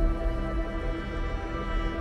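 Background music with long held notes over a deep low end.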